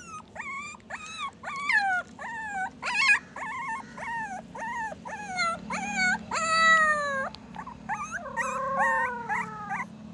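Young puppy crying: a quick series of short, high whimpering yelps, each falling in pitch, about two a second. Around six seconds in comes one longer drawn-out cry, and near the end a few longer wavering whines.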